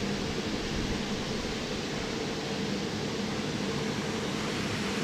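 Steady rushing background noise with a faint low hum, with no distinct events.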